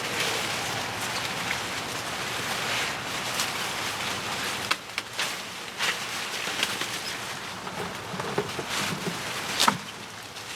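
Sweet corn stalks and dry leaves rustling and scraping as people push through the corn rows, with a few sharp snaps.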